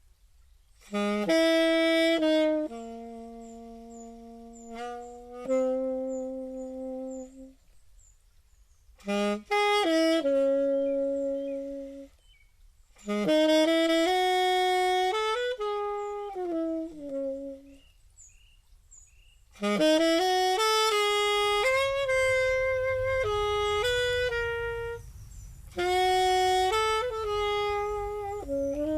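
Solo wind instrument playing a slow melody in phrases of a few seconds each, with short pauses between them.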